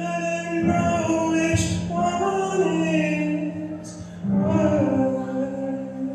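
A young man singing a slow melody into a microphone while playing sustained chords on a digital keyboard. A new chord is struck about four seconds in, and the music eases off near the end.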